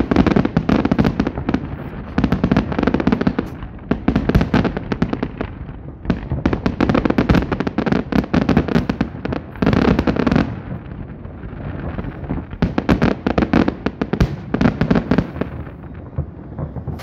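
Fireworks display going off: dense, rapid crackling and popping in a series of volleys about one to two seconds long, with short lulls between them.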